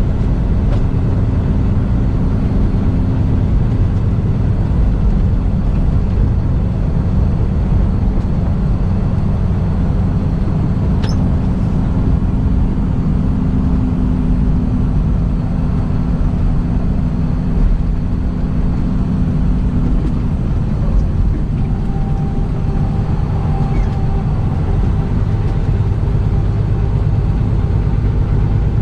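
Semi truck running down the road: a steady low engine drone with road noise, its hum shifting in pitch about twenty seconds in.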